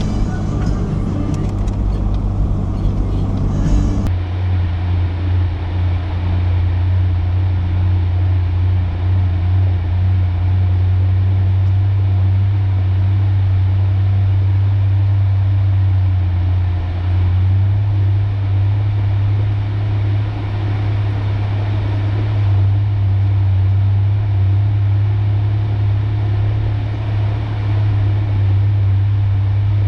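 1993 Ford Ranger pickup driving, its engine and road noise making a steady low drone that swells a little now and then. Music plays over the first few seconds and then cuts off.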